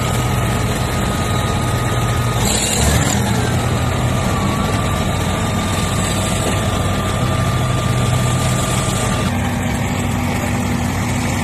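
Heavy diesel engine of a Caterpillar D8R crawler bulldozer running close by, with a steady high whine over its low drone. About nine seconds in, the whine stops and the engine note shifts.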